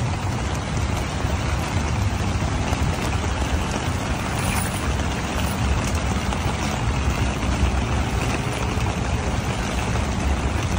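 Steady noise of wind and rain on the microphone, with a heavy, unsteady low rumble under a constant hiss.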